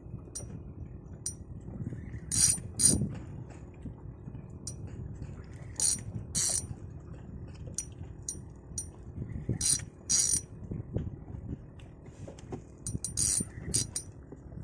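Fishing reel ratcheting in short rasping bursts, mostly in pairs, about every three to four seconds, with lighter clicks between, as a hooked fish is fought.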